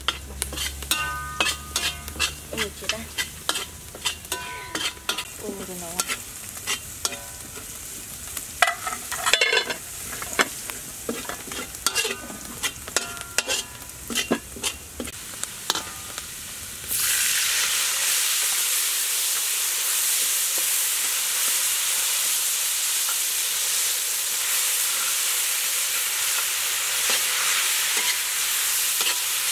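A metal spatula scraping and clinking against a steel wok, with short metallic rings, then about two-thirds through a loud, steady sizzle starts: squid frying in hot oil with garlic.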